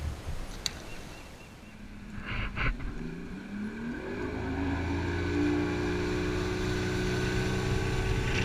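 Bass boat's outboard motor revving up about three seconds in, climbing in pitch, then running steadily as the boat cruises. Just before it, a couple of brief knocks.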